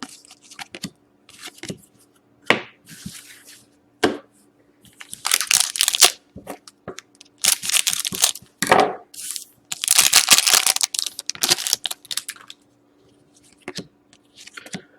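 A hockey card pack wrapper being torn open and crinkled by hand, in several rough tearing bursts with small crackles and clicks between them.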